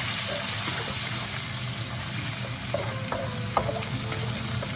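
Pork ribs and salted pork sizzling in oil in a wok, a steady hiss, with a few light taps of a wooden spatula against the pan about three seconds in.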